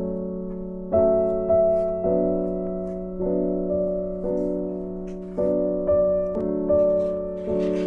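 Background piano music: gentle sustained chords changing about every second, each struck and then fading.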